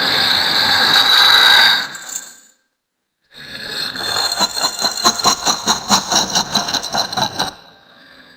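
Muppet-style monster voice laughing: a loud raspy burst lasting about two seconds, then after a short gap a long, rapid maniacal laugh pulsing about four times a second, tailing off near the end.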